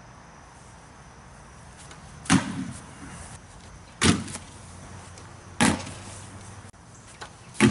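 Four sharp knocks, about a second and a half apart, each with a short ringing tail.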